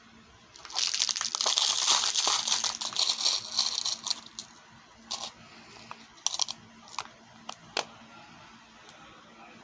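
A clear plastic bag crinkling and small metal beads and charms rattling as they are handled, for about three and a half seconds, then five or six separate light clicks as charms are picked out of a plastic compartment box.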